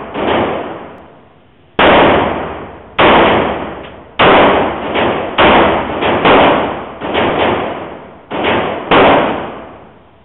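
A string of about ten pistol shots, fired at uneven intervals of roughly half a second to a second and a half, each shot trailing off in a reverberant decay.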